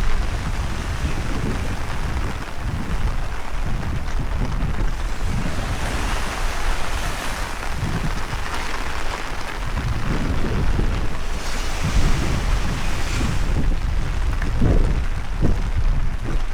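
Strong wind buffeting the microphone in uneven low rumbling gusts, over a steady hiss of heavy rain that swells now and then.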